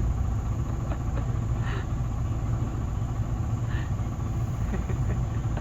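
Steady low rumble with a few faint ticks and two brief higher-pitched blips.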